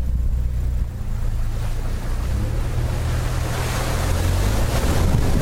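2015 Nissan Frontier Pro-4X's V6 engine running with a steady low hum while its tyres splash through puddles, the rush of water spray building from about two seconds in and loudest near the end.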